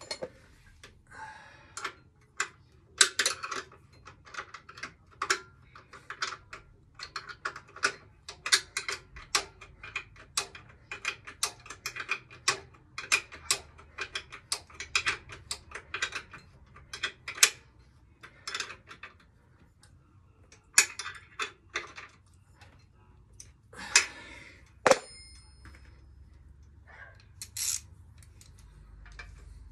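Metal hand tools and shock-absorber mounting hardware clicking and clinking irregularly, several times a second, during hand work on a motorcycle rear shock. Near the end there is one louder ringing metallic clank.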